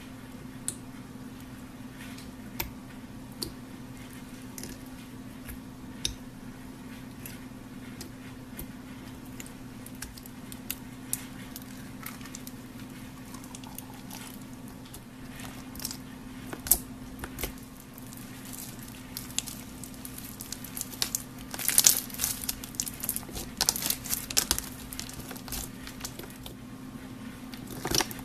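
Clear slime packed with pink beads being poked, stretched and squeezed by hand: sticky squishing with many small clicks and pops, busiest about three quarters of the way through, over a steady low hum.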